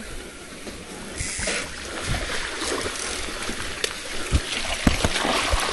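Bicycle rolling over a rough dirt trail: a steady rush of tyre and riding noise that swells about a second in, with sharp knocks and rattles from bumps coming more often in the second half.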